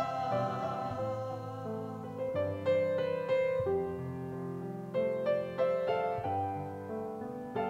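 Grand piano playing a slow passage of chords, each struck note left to ring and fade.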